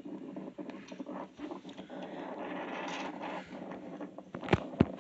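Rustling handling noise of a hand holding and touching an iPad, with two sharp taps close together about four and a half seconds in.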